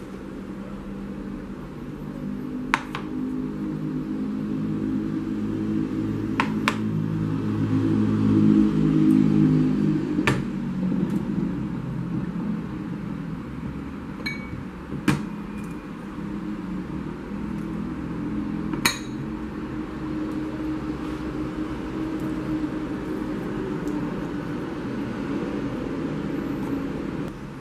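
A cut-glass bowl lid being handled, giving about half a dozen separate sharp glass clinks, over a low steady background hum.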